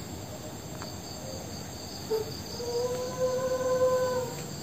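Crickets chirping steadily, and a little over two and a half seconds in, a long, high, wavering wail of a crying voice, held for nearly two seconds.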